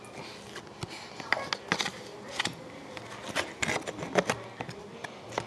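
O-Pee-Chee hockey trading cards being flipped and shuffled by hand: irregular light snaps and slides of card against card, coming more often in the second half.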